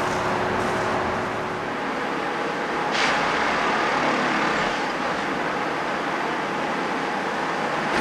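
Plasser & Theurer 08-32U multiple tie tamper running steadily, its diesel engine giving a dense mechanical drone. About three seconds in there is a brief hiss that fades within a second.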